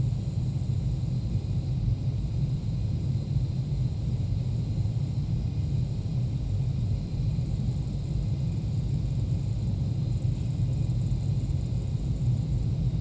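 Seafloor microseisms recorded by an ocean-bottom seismometer at 3.9 km depth and sped up 360 times into the audible range: a steady deep rumble, with faint steady high tones above it.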